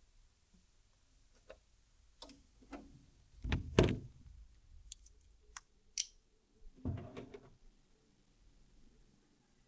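Scattered clicks and knocks of things being handled, with the loudest, a pair of knocks, about three and a half seconds in, and a short scraping knock around seven seconds in.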